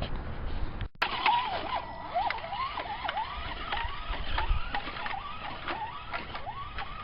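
Electric motor of an Axial Deadbolt RC truck whining in many short pulses, its pitch rising and falling as the throttle is worked, with scattered clicks and knocks. The sound cuts out briefly about a second in.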